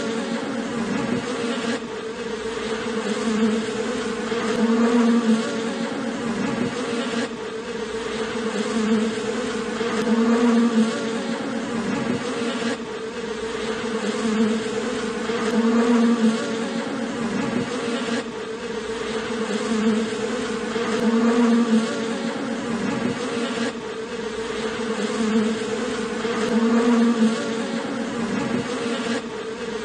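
Dense buzzing of a honeybee colony clustered on its comb: a steady hum that swells and eases about every five seconds.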